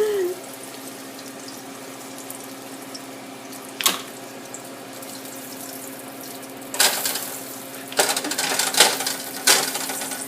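Kitchen sounds: a steady hiss with a low hum underneath, one sharp knock about four seconds in, then repeated clattering of pans and utensils from about seven seconds on.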